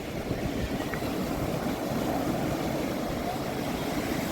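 Sea surf on a beach: waves breaking and washing in, heard as a steady low rush.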